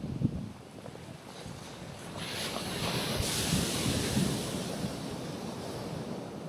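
Gentle sea waves washing onto a rocky shoreline: a wave surges in about two seconds in, its hiss strongest near the middle, then slowly draws back. Wind buffets the microphone throughout, with a sharp gust just after the start.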